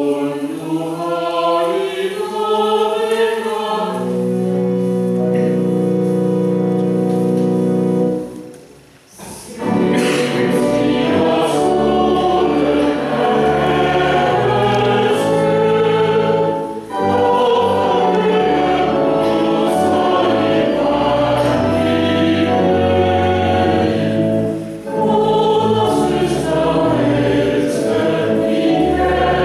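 Choir singing: a rising line of notes settling into a long held chord, then after a short break about a third of the way in, fuller choral music with a low bass line underneath.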